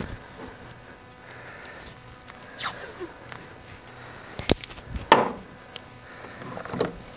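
Electrical tape being pulled off the roll and wrapped around a soldered wire splice: a few short pulls, the loudest about two and a half and five seconds in, with light clicks of handling between.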